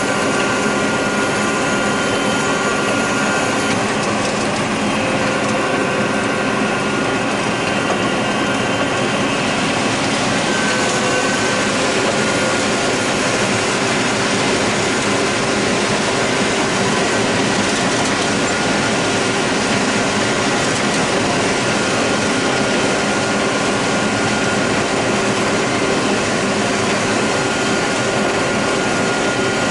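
John Deere 9600 combine running steadily while harvesting corn, its engine and threshing machinery making a dense drone with several steady whining tones. A brighter rushing noise comes up about nine seconds in.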